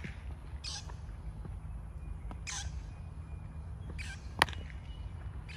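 A thrown baseball smacks into a fielder's glove once, sharply, about four and a half seconds in. Around it, steady wind rumble on the microphone and a few short harsh rasping sounds.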